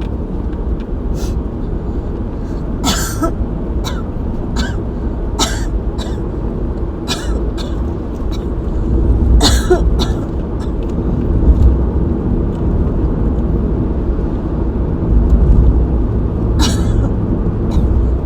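A person coughing during an asthma attack: short coughs in scattered bouts, most in the first half, two more around the middle and one near the end, over a steady low rumble.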